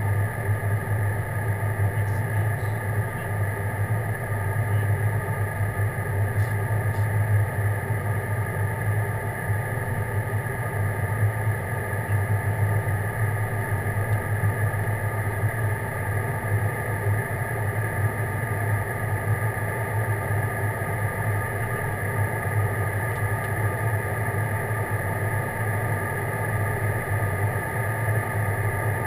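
Steady cabin noise of an airliner in flight just after take-off: a constant low engine drone with airflow rush and a few steady higher tones, unchanging throughout.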